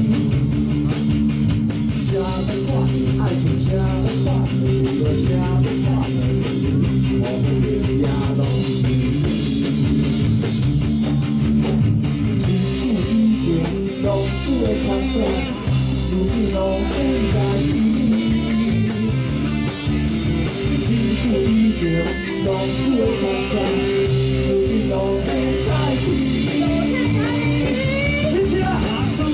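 Live rock band playing: electric guitar and drum kit over bass.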